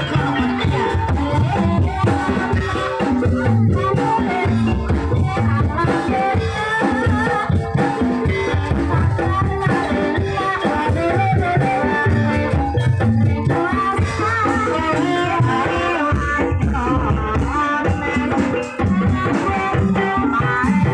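Live campursari music accompanying an ebeg hobby-horse dance: a band with steady drumming and a singer's wavering voice over it.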